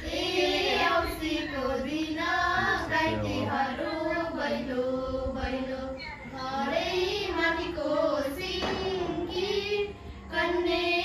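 Girls' and young women's voices singing a Nepali Bhailo (Tihar) song together, continuously.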